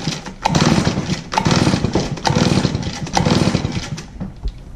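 RedMax backpack blower's two-stroke engine being pull-started: about four hard pulls on the recoil starter, roughly one a second, each a short burst of cranking, without the engine settling into a run.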